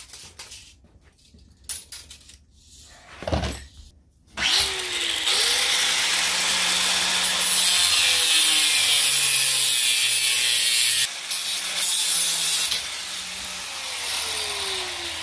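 A handheld power tool cutting through half-inch steel electrical conduit. After a few light handling clicks, the tool spins up about a third of the way in and cuts loudly and steadily. The sound drops to a lower level about two-thirds through, and the motor winds down in pitch near the end.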